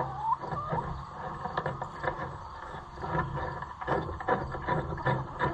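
A ratchet wrench clicking in short, irregular runs as a bolt on a tractor's hydraulic coupler bracket is tightened. There is a short rising squeak just after the start.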